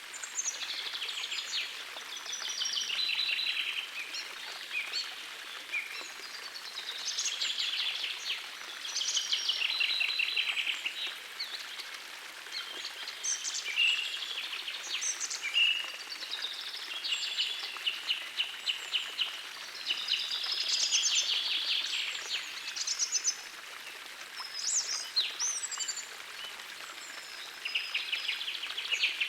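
Songbirds singing short phrases of rapid, trilled notes, one phrase every couple of seconds, over the steady rush of a small forest stream.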